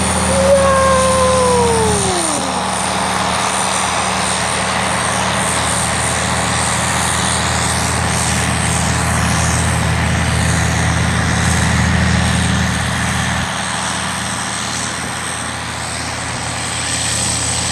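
Combine harvester running as it moves off into the corn: a steady engine drone under a broad rushing noise, with a thin high whine. A brief tone slides downward in the first couple of seconds.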